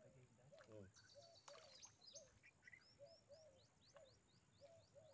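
Faint birdsong in quiet outdoor surroundings: a short low call repeating a few times a second, joined in the middle by a run of quick, high, falling chirps.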